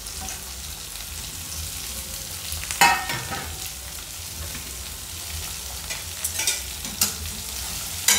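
Chopped carrot, capsicum and onion sizzling steadily in hot oil in a steel kadai. Metal clanks of steel utensils against the pan: a loud ringing clank about three seconds in and a few lighter clinks near the end as the ladle starts stirring.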